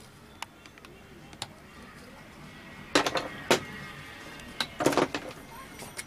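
A metal blade scraping and clicking over the solder side of a CRT TV's base circuit board, clearing the gaps between freshly soldered transistor pins so that no solder bridge shorts them. A few faint single clicks come first, then two short bursts of scraping about three and about five seconds in.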